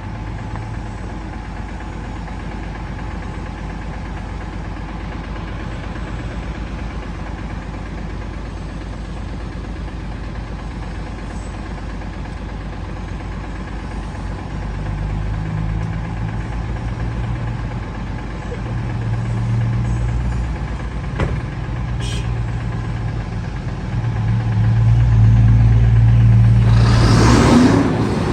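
Heavy diesel engine running steadily, with its engine note rising and falling as it is revved harder, loudest over the last few seconds.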